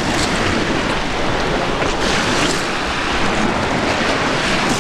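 Baltic Sea surf washing steadily onto a sand beach, with wind rushing over the microphone.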